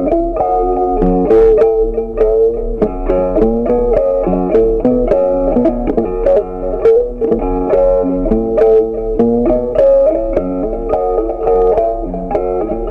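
Background music: a plucked guitar melody of quick, evenly picked notes.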